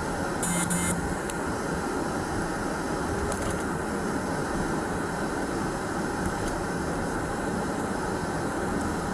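Steady noise of a running car with its ventilation fan blowing, heard inside the car. A short beep sounds about half a second in.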